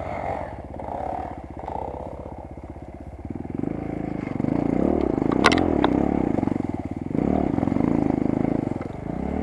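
Single-cylinder four-stroke enduro motorcycle engine running at low revs, then revving harder from about three seconds in, rising and falling as the bike pushes on, with one sharp knock in the middle.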